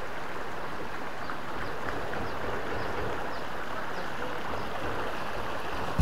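Shallow rocky stream running steadily over stones and small riffles, with faint short high chirps now and then.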